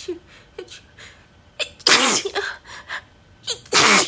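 A woman sneezing twice, about two seconds apart, each one a sharp voiced "achoo" meant to hold back a harsh sneeze, with short catching breaths before them.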